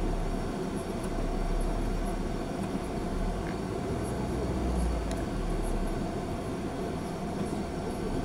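Inside a car driving slowly: engine and road rumble with a steady hum, the low rumble swelling and easing.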